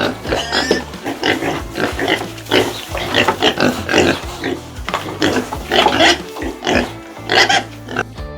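Domestic pig grunting and squealing, many short calls in quick succession.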